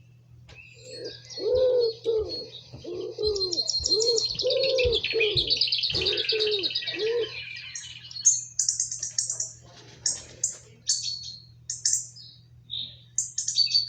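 Pet birds calling: fast high chirping trills with a run of about ten low, rounded calls beneath them in the first half, then scattered short high chirps.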